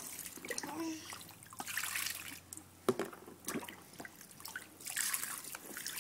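Bathwater dripping and lightly splashing in a plastic baby bathtub as a wet washcloth is wiped over a baby's head, with scattered small splashes and trickles.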